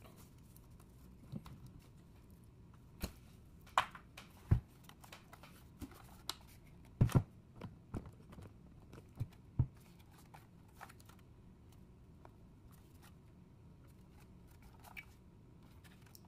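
Handling noise from a car stereo head unit's metal case and plastic button panel being picked up and turned over: scattered clicks, knocks and rustles, the loudest about four and a half and seven seconds in.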